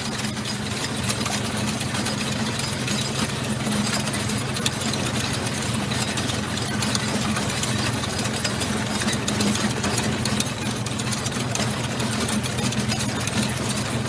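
Military tank running steadily in motion, its engine a constant low drone with a dense rattle over it.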